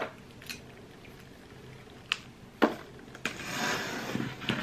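A few light taps and clicks from a cardboard box being handled, then a stretch of rustling, scraping packaging starting about three seconds in as the box is opened.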